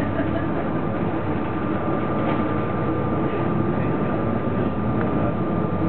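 City bus engine and drivetrain running, heard from inside the passenger cabin as the bus drives through a turn and on along the street, with tyre and road noise and a thin steady whine over the rumble.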